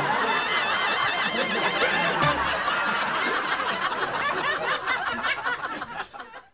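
Comedy soundtrack music with laughter mixed in, many wavering voices at once, fading out near the end.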